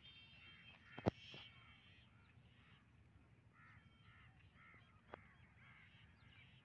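Faint outdoor bird calls: a run of short, repeated caws, about two a second, in the second half. A sharp click comes about a second in.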